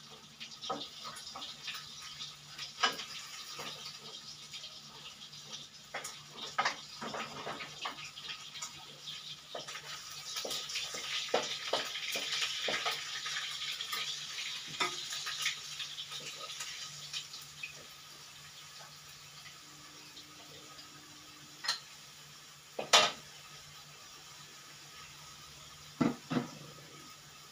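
Pots, wok and utensils clinking and knocking while cooking, with a stretch of steady hiss for several seconds about a third of the way in. Later the clatter thins out to a few sharp knocks, the loudest one late on, over a low steady hum.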